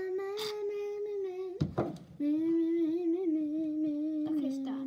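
A girl humming long, steady held notes, with a short break a little under two seconds in, after which the humming resumes slightly lower and steps down again near the end.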